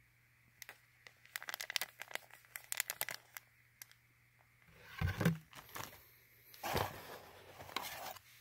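Plastic bait-packaging bag crinkling and rustling as it is handled: a run of quick crackles, then longer rustles with a dull bump about five seconds in and again near the end.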